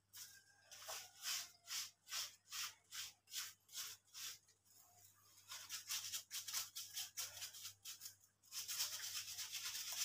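Stiff-bristled hand scrub brush scrubbing a wet, soapy puppy's fur: short raspy strokes about two or three a second, quickening about halfway through and running together into fast, continuous scrubbing near the end.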